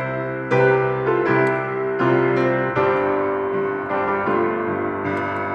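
Solo piano playing an introduction of struck, sustained chords, with a new chord roughly every second.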